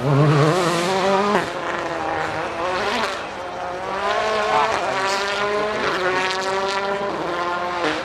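Rally car engine revving hard and shifting up through the gears, its pitch climbing and then dropping back at each shift, several times over.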